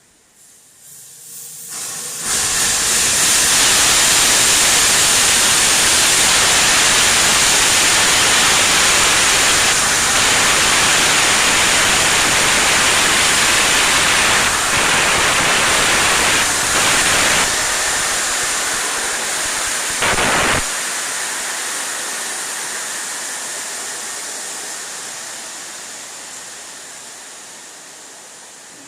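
Compressed air hissing loudly during an air pressure test of a welded part. It comes on in a few quick steps, holds steady for most of the time, and about twenty seconds in the deeper rush cuts off, leaving a high hiss that slowly fades.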